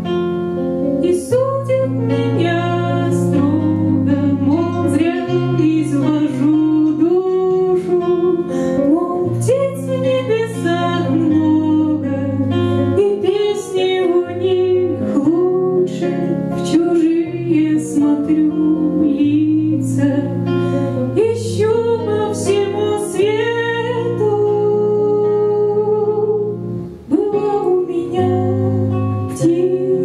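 A woman singing a slow song in Russian with vibrato, accompanied by a plucked guitar, with a brief pause near the end.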